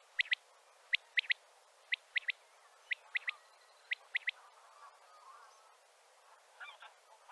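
Male common quail singing its three-note 'wet-my-lips' call, five times about a second apart. It stops a little over four seconds in, leaving fainter scattered calls near the end.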